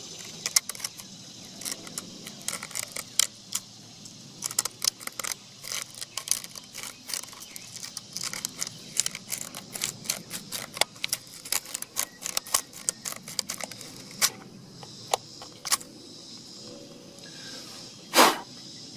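Small screwdriver wrapped in sandpaper scratching and clicking against the metal contacts inside a turn-signal bulb socket: an irregular run of sharp ticks and scrapes as rust is cleaned off a bad connection. One louder knock near the end.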